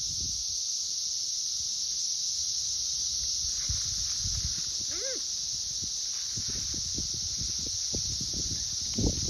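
Dense chorus of Brood XIII 17-year periodical cicadas: a steady, unbroken high-pitched drone. Irregular low thuds sound beneath it, more of them in the last few seconds.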